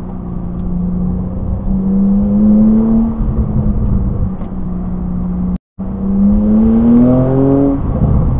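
Porsche 992 Turbo S's twin-turbo flat-six heard from inside the cabin while driving hard: the engine note swells and eases, then climbs steeply near the end before dropping back, over steady tyre and road noise. The audio cuts out for a moment about two-thirds of the way through.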